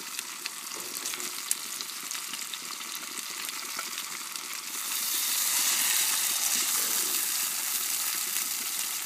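Steady sizzling hiss from hot cooking on the grill, with small crackles, getting louder about five seconds in.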